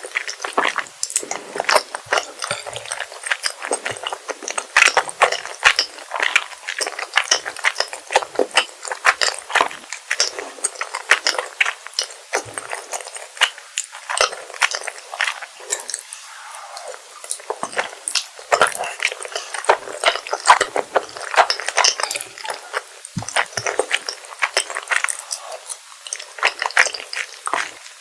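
Close-miked chewing of rosé tteokbokki, chewy rice cakes in a creamy sauce, giving a dense run of wet, sticky mouth clicks with a brief lull about halfway through.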